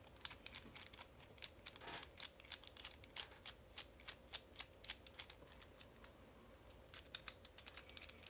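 Quick, irregular light clicks and taps of a Master Lock Pro Series padlock being taken apart, its parts handled and set down, with a short lull partway through and a quick run of clicks near the end.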